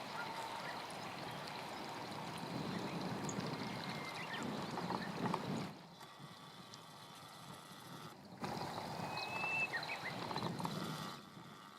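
Flowing stream water rushing steadily, dropping away abruptly twice. A bird gives one short high whistle about three-quarters of the way through.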